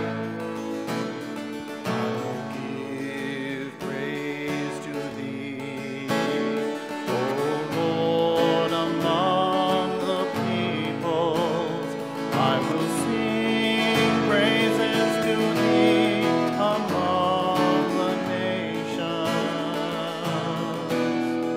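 Acoustic guitar strumming a hymn, with a cantor's voice joining in song from about seven seconds in.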